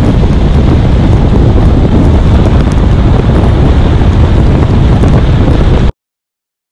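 Heavy wind buffeting on an action camera's microphone on a motorcycle at road speed, a loud, even rumble that cuts off suddenly near the end.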